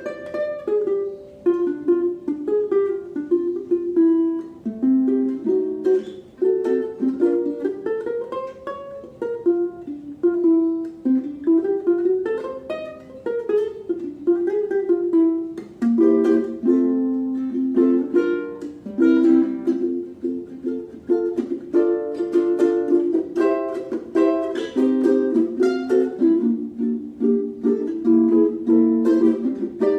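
Maestro Island Series UT-MR SB G ukulele played solo fingerstyle, a continuous melody with plucked chords, unprocessed as recorded on a phone. A few notes slide up and back down in pitch near the middle.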